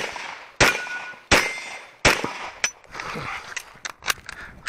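9mm Glock 17 Gen 4 pistol firing during a practical shooting stage: three loud shots about 0.7 s apart, the first two followed by a brief ringing tone, then several fainter sharp cracks later on.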